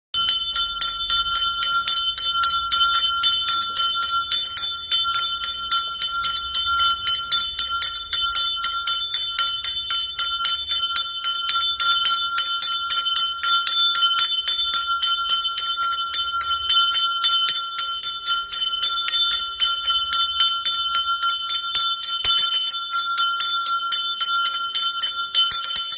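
Puja hand bell (ghanta) rung fast and continuously during worship, an even run of strikes with a clear ringing tone.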